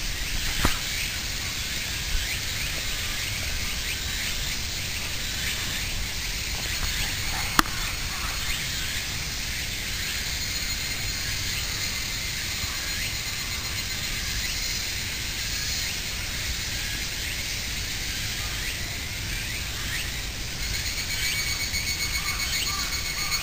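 Outdoor ambience: an even hiss with low wind rumble on the microphone, and two sharp clicks, one about a second in and one near eight seconds. A faint rhythmic pulsing comes in near the end.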